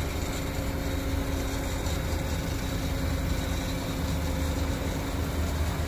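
Heavy vehicle's diesel engine running steadily at a low rumble, powering a hydraulic crane that is holding a lifted load.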